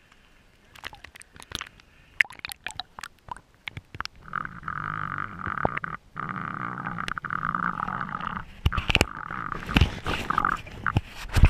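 Scattered small splashes and clicks of water at the camera, then a snorkeler breathing through a snorkel underwater: two long breaths of about two seconds each, followed by shorter uneven ones and a few sharp knocks against the camera housing.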